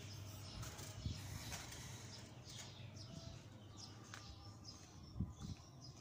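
Faint bird chirps, a series of short falling calls, over a quiet background, with a few soft knocks and one low thump about five seconds in.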